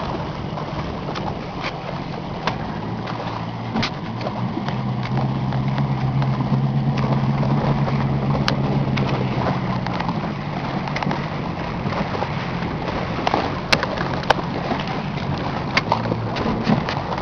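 An engine running steadily, louder through the middle, with scattered sharp clicks.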